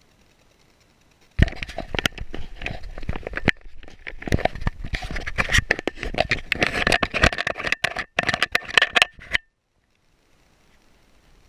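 Loud, dense scraping, rustling and clicking right at the microphone of a dog-worn action camera, the sound of the camera and its mount rubbing and knocking against the dog's fur as the camera is jostled. It starts abruptly about a second and a half in and cuts off suddenly about nine seconds in.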